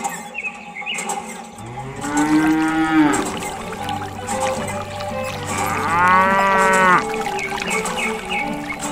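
Two cow moos, each about a second long and rising then falling in pitch, one about two seconds in and one near six seconds, over background music.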